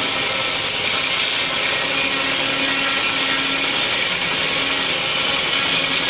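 An old 1940s circular sawmill running steadily, its large circular saw blade spinning while the log carriage carries a slab toward it.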